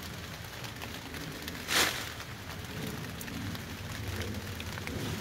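Steady rain falling on forest foliage, an even hiss with scattered drip ticks. A brief, louder rustling swish comes about two seconds in.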